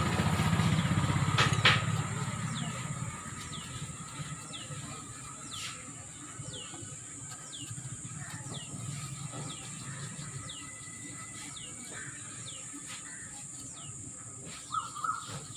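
A low rumble with a single sharp knock in the first few seconds, then a quieter background in which a small bird chirps over and over in short, falling notes.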